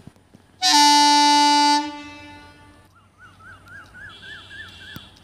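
WAP-4 electric locomotive's horn sounding one loud blast of about a second, dying away over the next second. A fainter call of repeated rising-and-falling notes follows, about three a second.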